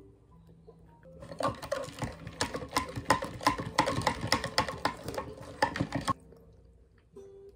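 Ice cubes rattling and clinking in a lidded cup of iced latte as a metal straw stirs them quickly, starting about a second and a half in and stopping abruptly about six seconds in.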